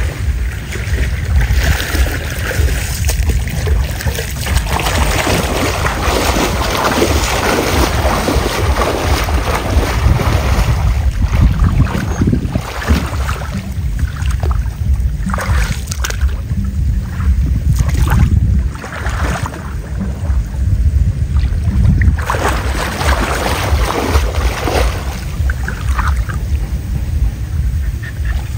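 Floodwater sloshing and splashing as people wade through it, pulling and setting a long mesh net, with heavy wind buffeting on the microphone.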